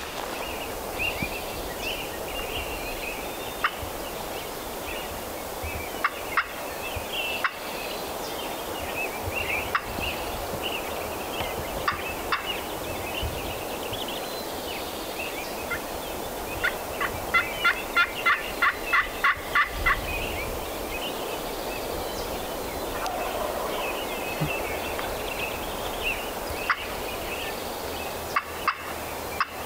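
Wild turkey calling at dawn over scattered songbird chirps, with a run of about nine evenly spaced loud notes a little past halfway.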